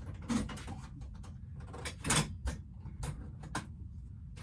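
Unpacking and handling noises: a string of brief scrapes, rustles and knocks as packaging and plastic parts are moved, the loudest about two seconds in.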